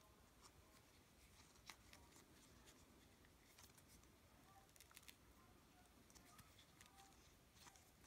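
Near silence with faint, scattered clicks and small handling noises of fingers picking wound-up pet hair off a Roomba brush roller's plastic end.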